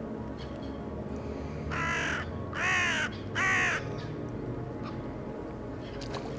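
A bird giving three harsh, crow-like caws in quick succession, the second and third the loudest.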